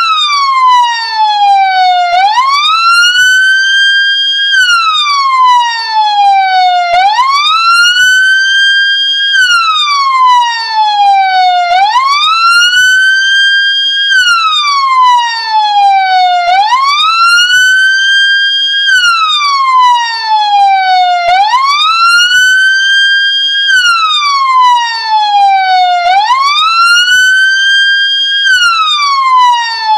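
Ambulance siren wailing: a loud tone that climbs over about two seconds, holds briefly at the top, then slides back down, repeating about every five seconds, six times through.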